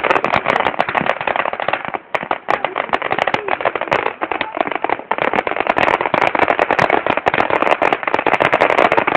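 Maxsem "Surprise" firework battery firing, a dense run of rapid crackling pops, many a second, with one brief break about two seconds in.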